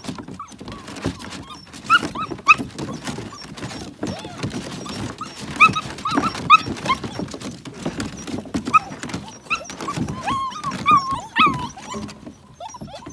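A litter of six-week-old puppies eating together: dense clicking and smacking of chewing and lapping, with frequent short high whimpers and squeals among them.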